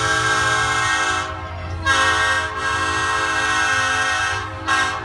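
Southern Pacific E9 diesel locomotive's air horn being test-sounded, a loud multi-note chord. It gives one long blast that eases slightly about a second in and swells again, then a short toot near the end.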